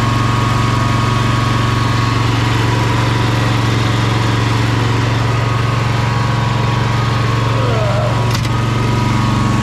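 Lawn mower engine running steadily, just started with the help of a portable jump starter after it would not start.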